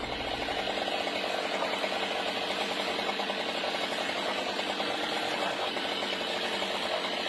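A chainsaw engine running steadily with a fast rattle, while water gushes out of the cut trunk of a sweet gum tree that had rotted hollow and filled with water.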